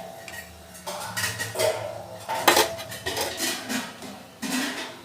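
Kitchen utensils and cookware clinking and knocking together as they are handled: several separate knocks, some with a brief ring.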